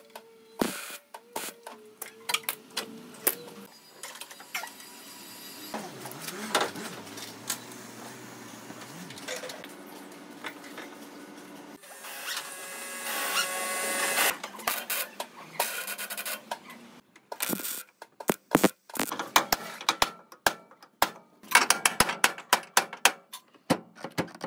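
Car body repair work: tool and metalworking noise, ending in a quick irregular run of sharp, loud clicks and taps over the last several seconds.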